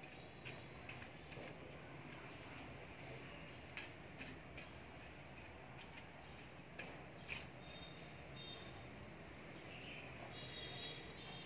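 Small hand trowel digging into garden soil: short scrapes and chops in three quick clusters of two or three strokes, then it goes quiet. A steady high tone runs underneath, with short chirps near the end.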